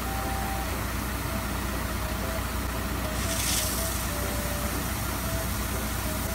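Water tanker truck driving slowly with its engine running steadily under a constant hiss as it sprays water onto the road. The hiss swells briefly about three seconds in.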